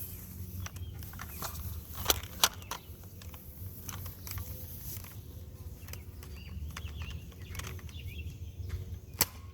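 Sharp clicks of a toy foam-dart blaster being fired: two close together about two seconds in and one more near the end, over a steady low outdoor rumble.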